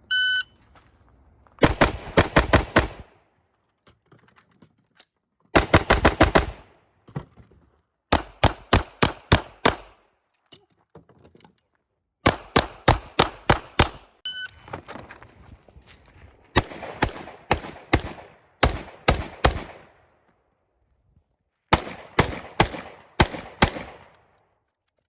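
A shot-timer beep, then a rifle fired in six quick strings of several shots each, with pauses of one to three seconds between strings while the shooter moves and changes position during a timed stage.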